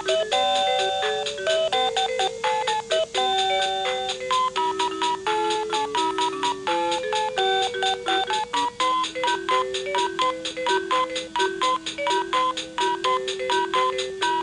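VTech Learn and Dance Interactive Zoo toy playing an electronic tune: a melody of short, clearly pitched notes over a steady clicking beat.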